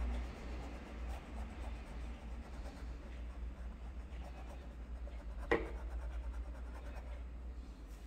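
Paintbrush scrubbing paint onto canvas, a faint scratchy rubbing, with one sharp click a little past halfway.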